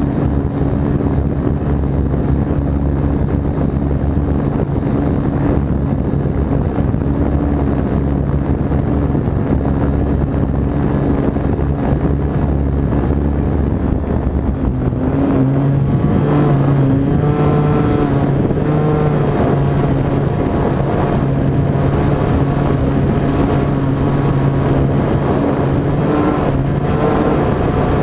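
Fox 35 two-stroke glow engine with muffler on a control-line model plane, running steadily at high speed, heard close from a camera on the wing. About halfway through, its pitch rises slightly and begins to waver.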